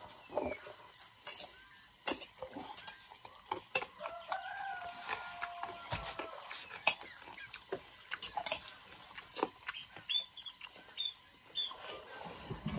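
Cutlery clinking against a plate while eating, with chickens clucking nearby. There is one drawn-out call about four seconds in and a few short high chirps near the end.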